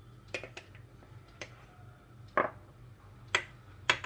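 A metal spoon clicking against a steel mixer-grinder jar as cornflour is spooned in: several sharp, separate clinks, the loudest about two and a half seconds in, over a faint low hum.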